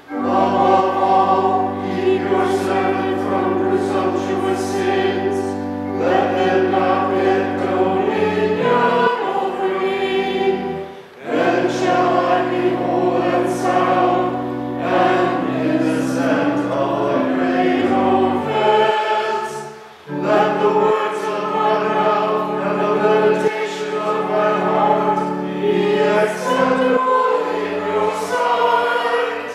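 Choir singing with pipe organ accompaniment, the organ holding long low notes under the voices. It goes in long phrases with short breaks between them.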